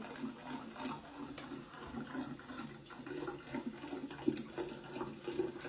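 Running water, faint and uneven, with a few small clicks.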